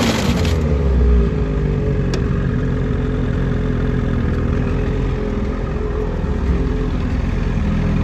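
2021 Ski-Doo 850 Turbo's two-stroke engine running with the track turning for an alignment check, its revs easing back in the first second, then holding steady.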